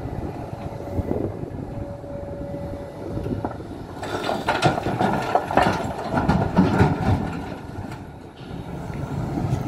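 Hidromek 390LC excavator's diesel engine running under load, with a steady whine for a couple of seconds, then about four seconds of loud clattering and scraping as its bucket works hard, stony ground.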